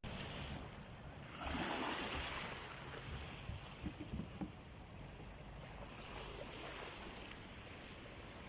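Faint sea waves washing, swelling about a second and a half in, with a few soft knocks near the middle.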